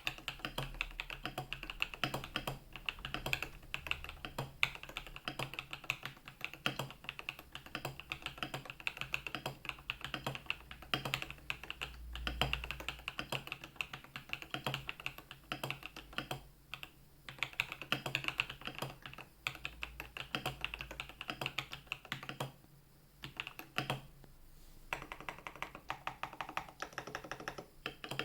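Fast, continuous typing on a Rama Works U80-A mechanical keyboard with Moyu Black switches lubed with 205g0, a dense run of key clacks broken by a few brief pauses.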